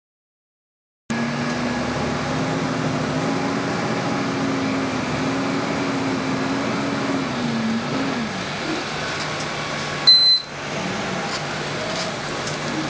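Transit bus engine and drivetrain running while under way, heard from inside the bus, with a low whine that drops in pitch about eight seconds in as the bus slows. A short, high electronic beep sounds about ten seconds in.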